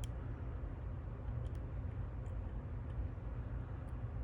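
A few faint, scattered clicks of a lock pick working the pins inside a Ruko Combi 2 lock cylinder, over a steady low background hum.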